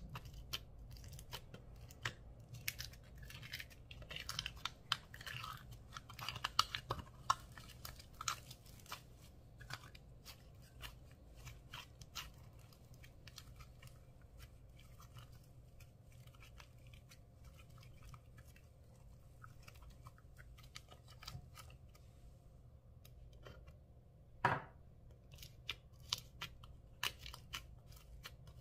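Hands squishing, pulling and stretching foam-bead slime, giving many small sticky clicks, pops and crackles, busiest in the first several seconds, with one louder pop near the end.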